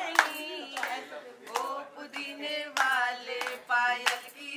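A group clapping hands in time, roughly two claps a second, with wavering singing over it.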